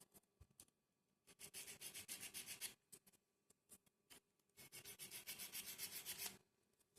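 Two faint bursts of quick back-and-forth rubbing strokes, each about a second and a half long, with a few light clicks around them: a small laser-cut plywood part being sanded by hand.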